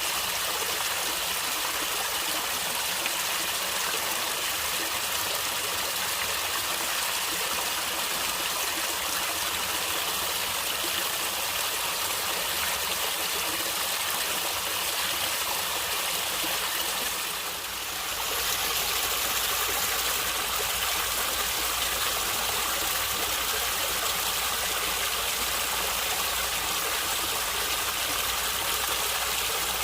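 Stream water flowing and gurgling steadily. About two-thirds of the way through it briefly dips, then carries on with a fuller low rumble.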